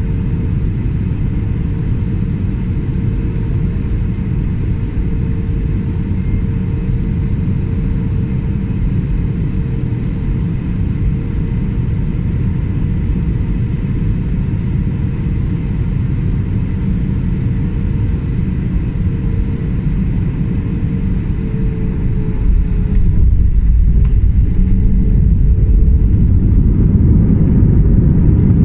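Jet airliner cabin noise beside the engine on final approach: a steady engine drone with a faint humming tone. About three-quarters of the way through the plane touches down, and the sound jumps to a louder, heavier rumble as it rolls out along the runway.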